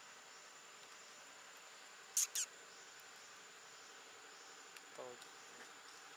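Faint, steady insect drone holding one high tone. About two seconds in, two quick, high squeaks sweep downward, and a short, weaker falling call comes near five seconds.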